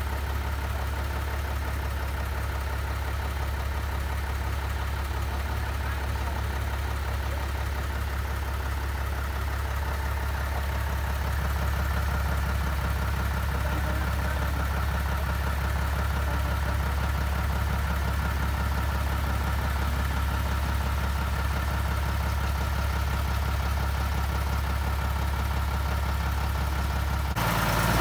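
Diesel engine of a Tata 1612 4x4 truck running steadily while the truck is stuck in deep mud, its front wheel spinning in the clay. The engine revs up just before the end.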